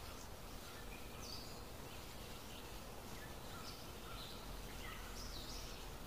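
Forest ambience: a steady background hiss with scattered short bird chirps now and then.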